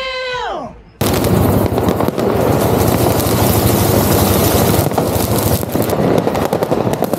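A drawn-out voice from an inserted film clip cuts off about a second in. Then comes a dense, unbroken crackle of New Year's Eve firecrackers and fireworks going off in rapid bangs, like gunfire.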